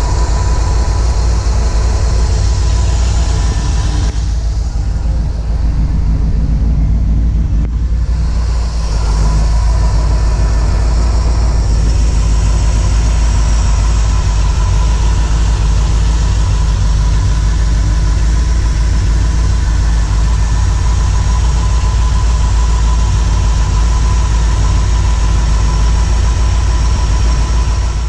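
L79 327 small-block V8 of a 1965 Corvette idling steadily, heard close up from the engine bay.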